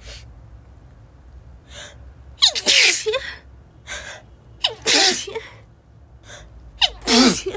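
A woman with a head cold sneezing three times in quick succession, about two seconds apart. Each sneeze is preceded by a quick gasping inhale and begins with a voiced 'ah' sliding down in pitch before the loud blast.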